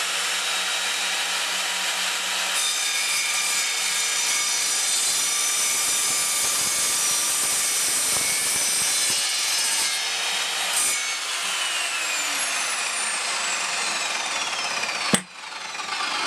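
Evolution Rage 210 SMS sliding mitre saw's multipurpose blade cutting through a metal crutch tube, the motor running steadily at full speed with a high whine. About eleven seconds in the trigger is released and the whine falls slowly as the blade spins down. A sharp click comes near the end.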